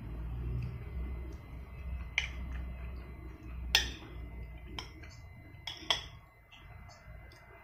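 Metal spoon clinking and scraping against a glass bowl of rice and mung bean stew, about five sharp clinks, the loudest about four seconds in.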